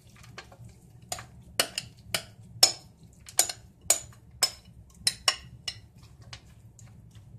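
A utensil knocking against a clear mixing bowl, about a dozen sharp taps roughly two a second, as sticky muesli-bar mixture is knocked out into a baking pan. The taps grow weaker near the end.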